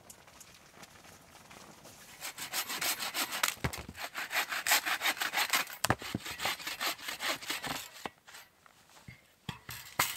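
Hand saw cutting firewood, quick even back-and-forth strokes at about four a second that start about two seconds in and stop a couple of seconds before the end. A few sharp knocks follow near the end.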